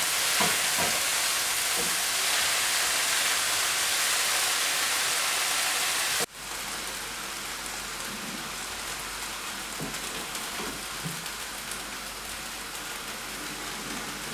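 Sliced mushrooms sizzling in oil in a frying pan, a steady hiss as the freshly washed mushrooms let out their water. About six seconds in, the sizzle drops abruptly to a softer level, with a few light scrapes of stirring.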